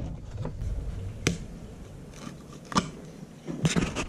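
Utility knife scraping old glue and rubber off a carbon fibre fin blade: a handful of short, separate scrapes and clicks, spread out irregularly.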